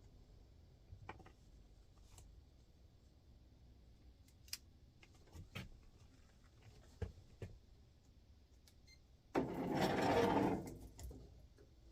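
Scattered light clicks and taps of hand work on an air-conditioning unit, then a loud rushing, scraping noise that starts abruptly about nine seconds in and lasts about a second and a half.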